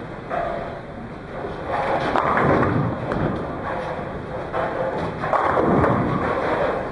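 Bowling alley noise: balls rolling and thudding down lanes, with swelling rumbles about two and five seconds in and a few sharp clicks of pins.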